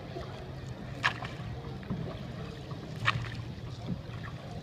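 Riverboat underway: a steady low hum with a short, sharp knock about every two seconds, twice in this stretch.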